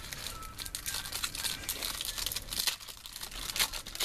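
Foil wrapper of a Topps Platinum football card pack crinkling as it is torn open by hand.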